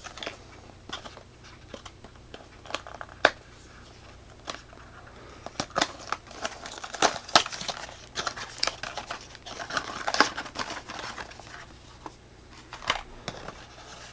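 A flashlight's retail box and its paper packaging being opened by hand: crinkling and rustling, with scattered clicks and taps as the contents are handled.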